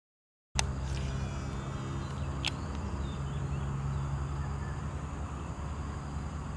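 Silence for about half a second, then a steady low drone of outdoor background noise with a few faint clicks and a brief high trill about a second in.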